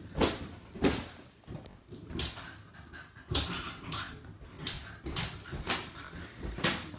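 A schnoodle puppy's short breathy sounds, panting with little whimpers, coming in irregular puffs about once or twice a second.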